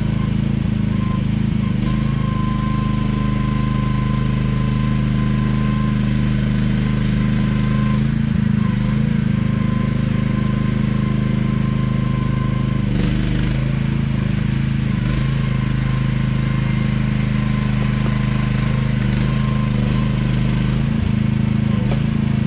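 AGT QH12R mini excavator's small engine running steadily, with a thin high whine that comes and goes several times.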